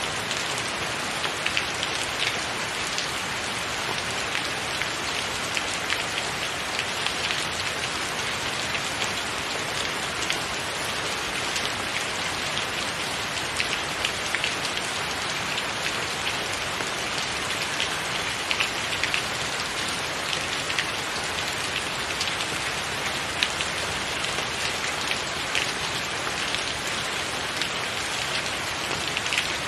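Steady rain falling, an even hiss with scattered louder drops ticking close by now and then.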